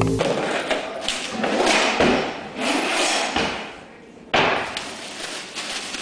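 Kitchen clatter: knocks and thuds of utensils working on a worktop, with a noisy scraping rustle between them. The sound cuts abruptly to another stretch of clatter about four seconds in.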